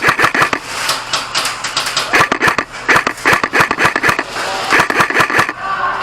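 Airsoft guns firing full-auto: several short bursts of rapid sharp clicks, one after another with brief pauses between them.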